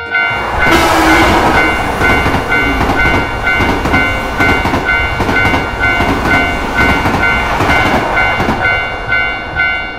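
Japanese level-crossing warning bell ringing its repeated two-tone 'kan-kan' at about two strokes a second while a train rushes past with a loud rumbling noise that starts about half a second in.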